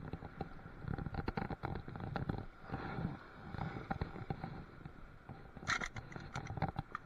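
Scraping and clicking from gear being handled, with a louder, sharper scrape about three-quarters of the way through.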